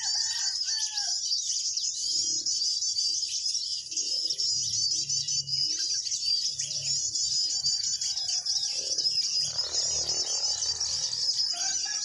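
Small birds chirping rapidly and without a break in a high register, with a few lower whistled calls at the start and again near the end.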